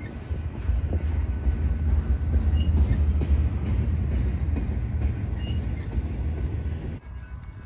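Double-stack intermodal freight cars rolling past on steel wheels: a steady low rumble of wheels on rail, with a faint high squeak about every three seconds. The sound cuts off abruptly about seven seconds in.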